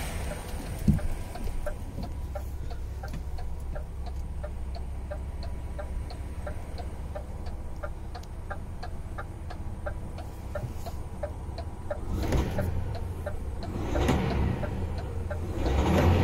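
DAF XF 480's PACCAR MX-13 six-cylinder diesel idling steadily, heard from inside the cab, with a light regular ticking of about three ticks a second over it. A few louder swells of noise come near the end.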